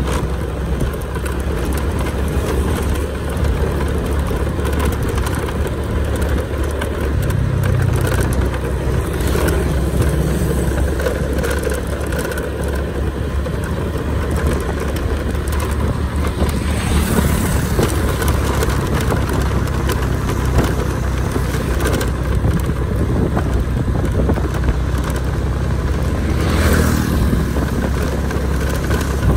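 Steady low rumble of a running motor vehicle.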